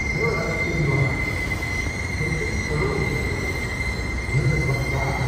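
A train running past with a steady high-pitched squeal from its wheels on the rail, over a low rumble.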